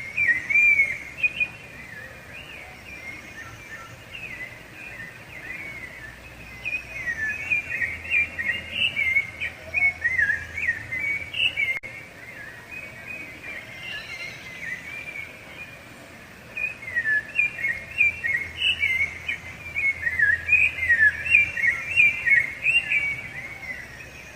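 Rufous-bellied thrush (sabiá-laranjeira) singing: bouts of rich, warbled whistled phrases rising and falling in quick notes, with short pauses between bouts.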